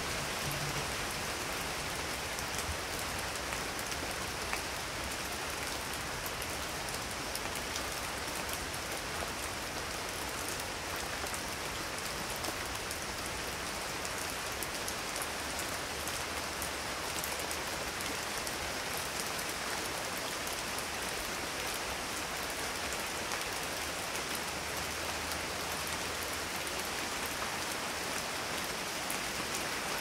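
Steady rain falling on surfaces, an even wash of drops with no distinct thunderclaps.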